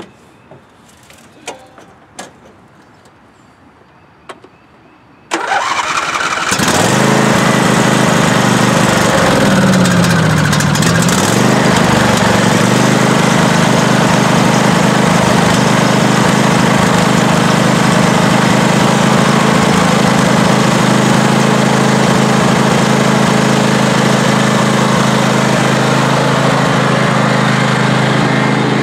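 Craftsman YT4500 lawn tractor engine cranked by its electric starter, catching about six seconds in and then running steadily. Its pitch dips briefly a few seconds after it starts. A few small clicks and knocks come before the start.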